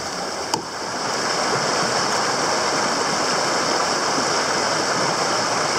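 Mountain stream rushing steadily over rocks, growing louder about a second in. One sharp chop into wood about half a second in.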